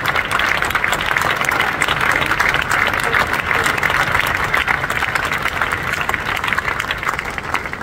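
Large crowd applauding: dense, steady clapping that eases off slightly near the end.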